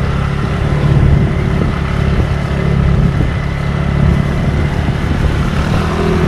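Yamaha Mio Sporty scooter's small single-cylinder engine running steadily while the scooter is ridden along a road.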